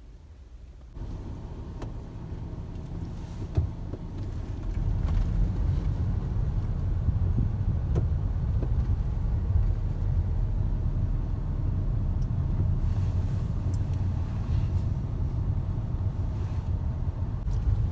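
Steady low rumble of a vehicle in motion. It starts about a second in, grows louder about four to five seconds in and then holds steady, with a few faint clicks.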